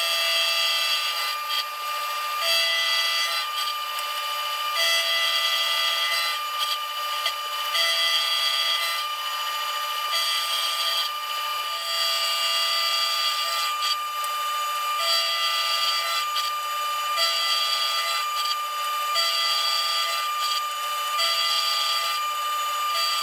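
Metal-shop tool work with a steady high tone under it and a scraping, working noise that comes and goes in a regular cycle about every two and a half seconds.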